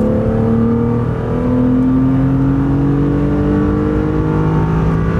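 1996 BMW E36 M3's 3.2-litre S50B32 naturally aspirated straight-six pulling hard in third gear, its note climbing steadily as the revs rise, with a slight dip in loudness about a second in.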